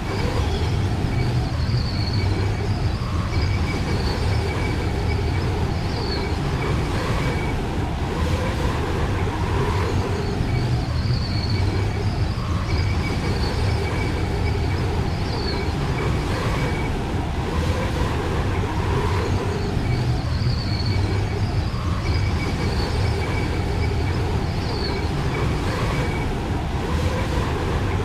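Steady, unbroken low rumble of vehicle noise.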